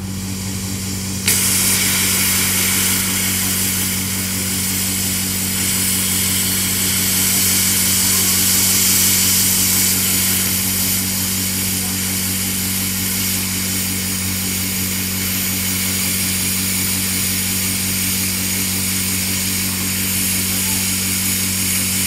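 Tenya CUT-60C plasma cutter, run on its built-in air compressor, cutting 12 mm steel plate. A steady low hum runs throughout; about a second in the arc strikes with a sudden loud hiss that holds steady as the torch cuts.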